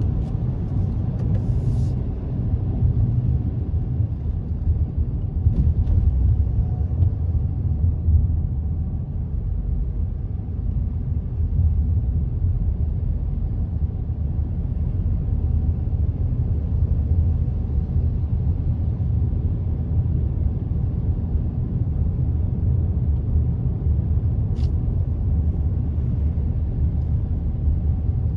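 Steady low rumble of car engines idling in a slow queue of traffic.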